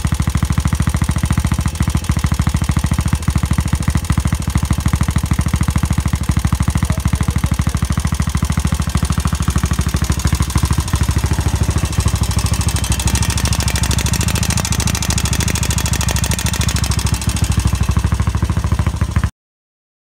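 Yamaha SR400's air-cooled single-cylinder four-stroke engine running with a rapid, regular pulse and an abnormal noise that the owner calls its death throes. The sound stops abruptly near the end.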